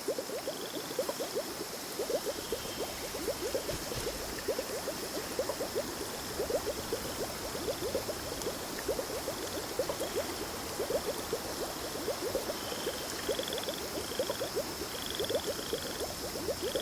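A chorus of frogs croaking, many quick overlapping calls, over a steady high-pitched whine with short chirps now and then.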